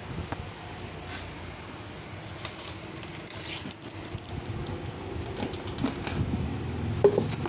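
Scattered light clicks and clinks of small objects being handled, over a steady background hum. A low engine hum grows louder over the last couple of seconds.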